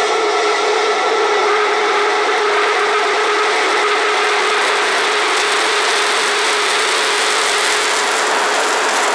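Starship SN9's three Raptor rocket engines firing at liftoff: a loud, steady rushing roar of exhaust, thin in the deep bass.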